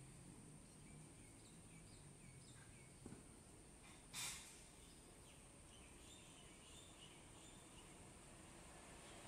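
Near silence: faint outdoor ambience with scattered faint bird chirps, and one short hiss about four seconds in.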